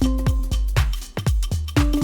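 Background electronic dance music with a steady four-on-the-floor kick drum and sustained synth notes.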